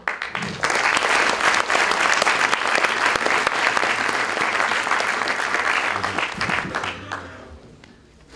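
Audience applauding, the clapping starting at once, swelling within the first second, then dying away over the last couple of seconds.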